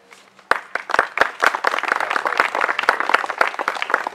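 Applause: a group of people clapping, beginning about half a second in.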